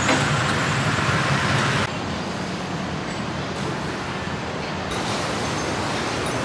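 Steady road traffic noise, a hum of passing vehicles with a low rumble. It drops abruptly to a quieter level about two seconds in.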